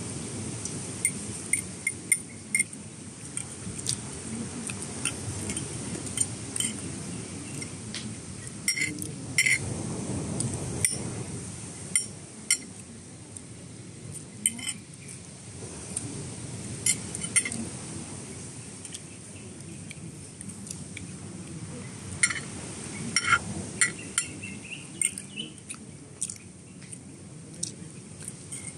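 Cutlery clinking and tapping against plates and glassware while eating, with many sharp, irregular clinks throughout, over a steady low background noise.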